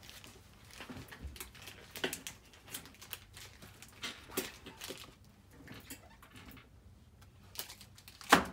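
Irregular small knocks, taps and rustles of objects being picked up and set down on a glass-topped table, with a sharper knock near the end.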